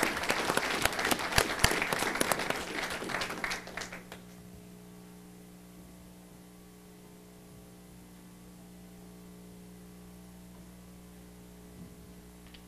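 Audience applauding, dying away about four seconds in. After that only a steady low hum remains.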